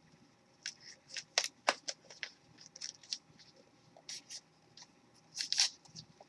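Foil wrapper of a Magic: The Gathering booster pack crinkling and crackling in short irregular bursts as hands struggle to tear it open. It comes in two clusters, a longer one in the first half and a brief one near the end.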